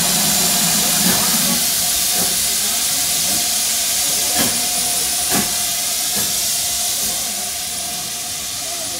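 GWR King class steam locomotive 6023 'King Edward II' standing still and hissing steam steadily, with a faint steady tone under the hiss and a few faint clicks; the hiss grows a little fainter near the end.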